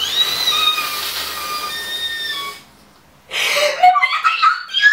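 A woman's high-pitched, breathy excited squeal held for about two and a half seconds, then after a short pause a giggling squeal that slides up and down in pitch.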